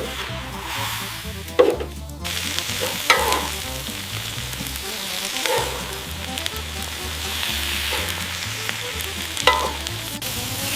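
Food sizzling steadily on a hot grill, with a few sharp knocks, over background music with a stepping bass line.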